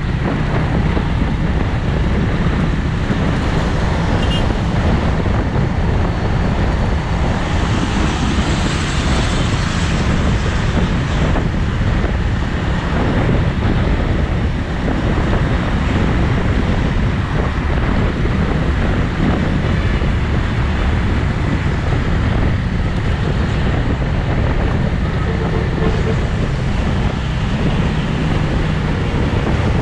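Wind rushing over the microphone and road noise from a Bristol 250 Classic motorcycle cruising at steady speed in traffic, its engine running underneath as a steady low rumble. The hiss grows brighter for a few seconds about eight seconds in.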